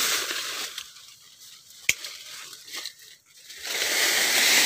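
Durian leaves and twigs rustling as branches are handled during pruning, with one sharp snip of hand pruning shears about two seconds in. The rustling grows loud and continuous in the last second.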